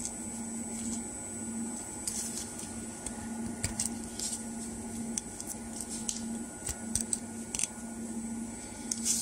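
Hands turning over and handling a spin-welded polypropylene filter cup, with scattered light plastic taps and rustles, over a steady low hum from the machinery.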